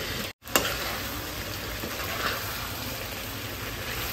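Duck meat and large potato chunks sizzling in a hot wok: a steady frying hiss, with a brief cut to silence near the start.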